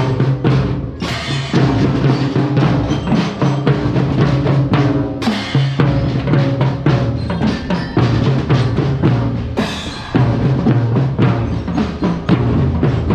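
Marching drum corps playing: snare drums, bass drums and crash cymbals beat a fast, dense rhythm over a steady low tone, with a short change in the pattern about five seconds in and again near ten seconds.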